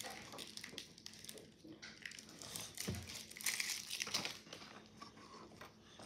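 Crinkling and rustling as hands rummage among toys and their packaging, in uneven bursts, with a light knock near the middle.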